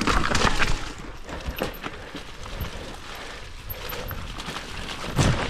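Mountain bike rattling over a rough, rutted dirt trail: tyre noise on dirt with many quick knocks and clatters from the bike. A loud rush of noise in the first half-second, and a loud thump near the end.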